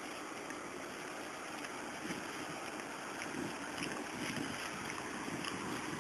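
Steady rushing wind noise on the microphone, with low rumbling swells and a few faint knocks.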